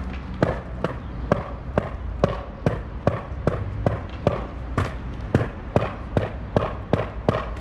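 A freestyle skateboard, held upright, knocking its tail and wheels against stone paving tiles in a steady rhythm: a sharp clack about twice a second.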